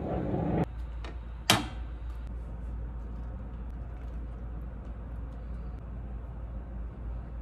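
A single sharp knock with a short ringing tail about one and a half seconds in, a spatula striking the rim of a cast-iron skillet while serving, over a steady low hum. A short stretch of noise at the very start cuts off abruptly.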